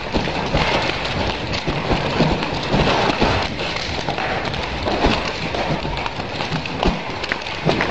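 Two nunchaku being swung fast, with irregular clacks and knocks over a steady noisy hiss.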